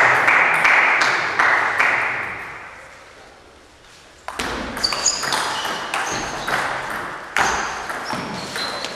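Table tennis rally: the ball clicking back and forth off paddles and table with short high pings, starting sharply about four seconds in after a brief lull, echoing in a large hall.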